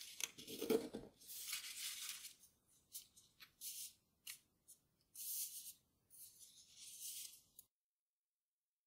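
Grainy origami paper rustling and crinkling under the fingers as it is folded and shaped, in short scratchy bursts with a few sharp crackles. It stops abruptly about a second before the end.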